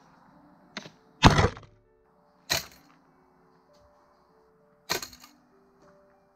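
Sharp wooden cracks of a rat trap's spring bar snapping shut on a wooden launch rail, four in all, the second the loudest, over background music with held notes.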